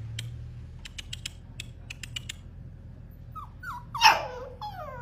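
A dog whining: a few light clicks, then short high whimpers about three seconds in, one loud sharp yelp about four seconds in, and a long whine falling in pitch near the end.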